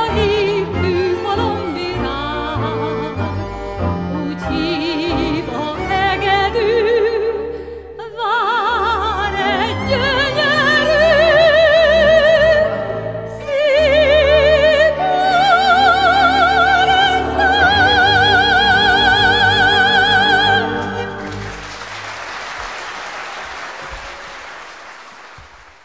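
A Hungarian magyar nóta sung by a woman with a wide vibrato over a Gypsy orchestra led by violin, building to long held high notes as the song closes. Near the end the music stops and applause follows, fading away.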